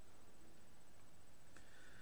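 Quiet room tone: a steady faint hiss with a thin high whine, and a faint click near the end.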